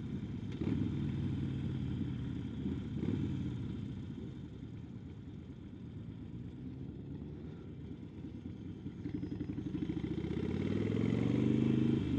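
Harley-Davidson Sportster XL1200N's air-cooled 1200 cc V-twin engine running under way. It eases off and goes quieter through the middle, then rises in pitch and grows louder as the bike accelerates near the end.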